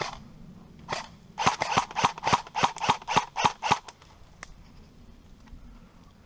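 Airsoft rifle firing: a single shot about a second in, then a quick string of about ten shots at roughly four a second, ending just before the four-second mark.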